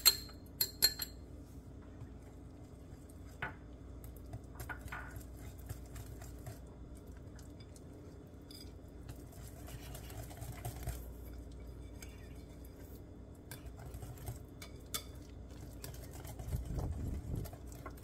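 A few ringing clinks in the first second, a small glass dish tapped against a stainless wire whisk to knock cornstarch out. After that, quiet wet whisking of a thick carrot batter in a glass bowl, with faint scattered clicks of the whisk against the bowl.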